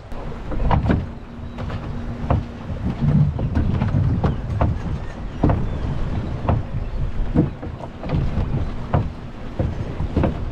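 Strong, gusty wind buffeting the microphone over choppy water. Waves slap against the wooden dock in irregular knocks, about one or two a second.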